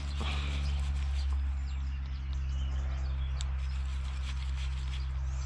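Birds chirping over a steady low hum, with a couple of small clicks.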